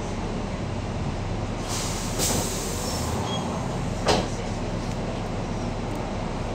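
Double-decker bus standing at a stop with its diesel engine idling, heard from the upper deck. A burst of compressed-air hiss about two seconds in and a short knock about four seconds in, typical of the bus's pneumatic doors and brakes.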